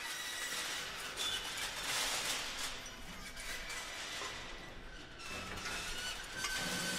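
Experimental chamber music played on objects and percussion: a dense scraping, clinking noise texture with scattered clicks, joined about five seconds in by a steady high tone and a low hum.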